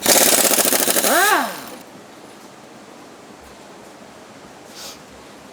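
Impact wrench hammering rapidly on a shock mount bolt for about a second and a half, its motor pitch rising then falling as it stops.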